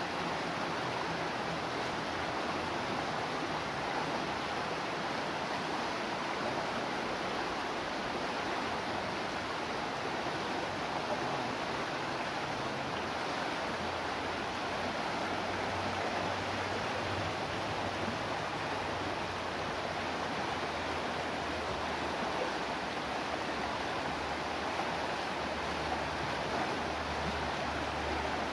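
Fast-flowing river rushing steadily over rocks and small rapids.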